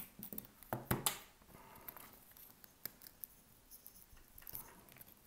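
Small tool clicks and scrapes on an iPhone 13's cracked back glass as shards are prised off. There are a couple of sharper clicks about a second in and scattered lighter ticks after that.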